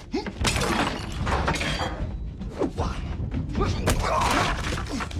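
Sword-fight sound effects: a quick, irregular run of blows, clashes and thuds, with short grunts of effort between them.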